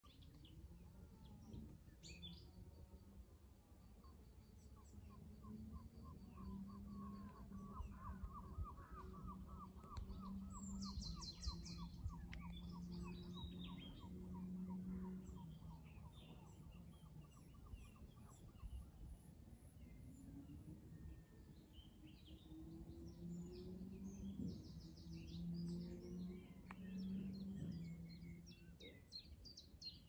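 Songbirds singing and calling: scattered chirps and quick trills, with a long run of evenly repeated notes through the first half. A faint low steady drone sits underneath.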